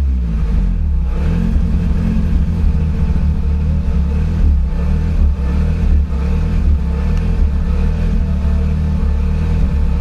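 Lotus Exige's Toyota 2ZZ-GE inline-four idling, heard from inside the cabin, the note steady but slightly uneven. A rough idle from the stock ECU and MAF run in a blow-through configuration.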